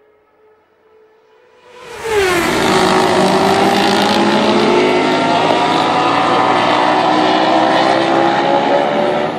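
Vintage racing motorcycle engines at speed, cutting in abruptly about two seconds in and staying loud and steady. The engine pitch drops briefly, then rises slowly.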